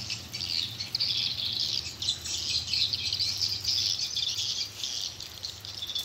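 Swiftlets twittering: a dense, unbroken chatter of high chirps, with a steady low hum underneath.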